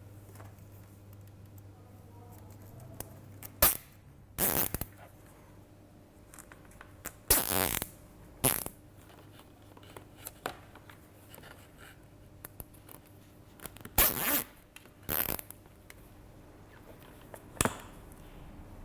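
Plastic zip ties being pulled tight around wiring, each a short ratcheting zip through the tie's locking head; about seven of them come in irregular ones and twos.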